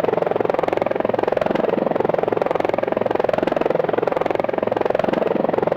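Helicopter sound effect: a steady, loud rotor beat with a fast, even thudding pulse and no change in pitch.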